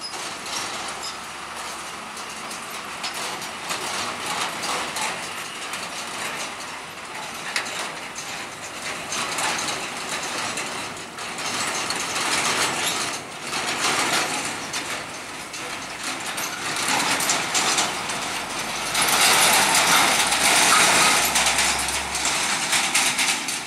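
Hino truck with an empty slatted cargo body crossing railway tracks slowly, its body and frame rattling and clanking in a dense run of knocks over the engine. The engine rumble and the clatter grow loudest about three-quarters of the way through.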